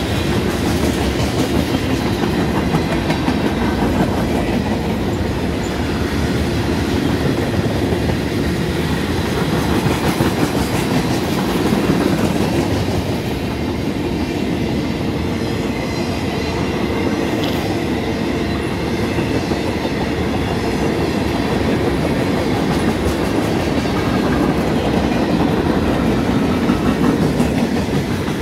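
Freight cars of a mixed freight train rolling past: a steady rumble of steel wheels on rail, with a constant rapid clicking as the wheels pass over rail joints.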